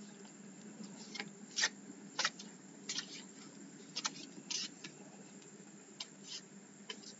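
Tarot cards being handled: a scatter of soft, irregular flicks and rustles of cards, over a faint steady low hum.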